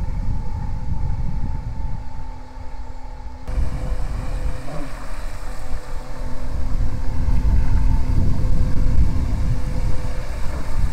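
Homemade RC carp bait boat under way: its 2845 brushless inrunner motor gives a steady whine that drops in pitch about a third of the way in, over the churn of its propeller wash and a heavy low rumble.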